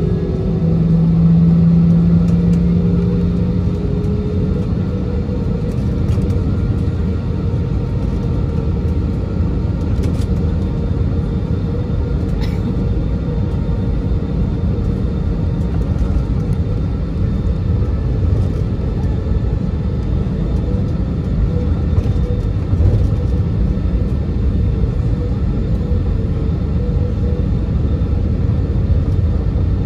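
Steady cabin rumble inside an Airbus A320-216 taxiing, with its CFM56 engines at low power, heard from a seat over the wing. A humming tone fades out about three seconds in.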